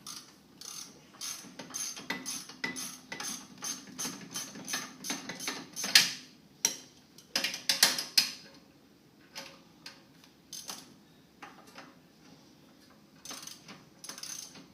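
Hand ratchet wrench clicking in quick runs of strokes, with a few louder metallic knocks about six and eight seconds in, then slower, scattered clicks.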